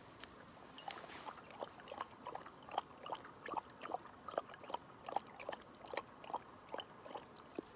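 English Setter lapping water from a bowl: a quick run of wet laps, about three a second, starting about a second in and stopping just before the end.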